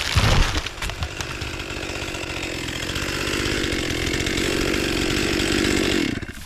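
Stihl MS 261 chainsaw running at high revs, with a heavy thump in the first half second; the saw cuts off abruptly about six seconds in.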